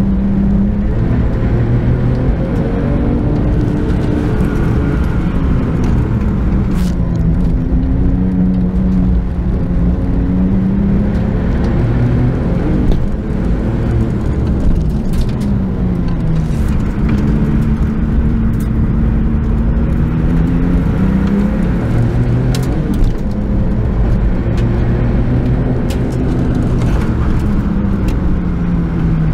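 Porsche 997 GT2's twin-turbocharged flat-six heard from inside the cabin under hard acceleration, its pitch climbing and dropping back again and again with throttle and gear changes. A few sharp clicks are heard along the way.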